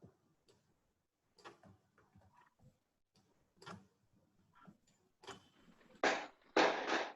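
Scattered faint clicks of a computer mouse, then a few louder, longer noises near the end.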